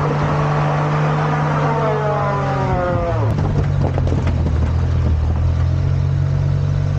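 Kei mini truck engine running steadily, with a higher tone that slides down in pitch about three seconds in.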